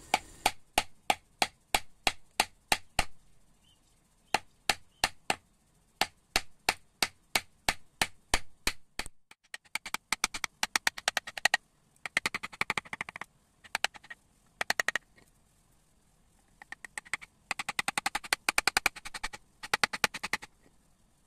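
Wood-carving chisel being driven along an outline into a wooden board by sharp, repeated taps: about three a second for the first nine seconds, then quick runs of rapid taps.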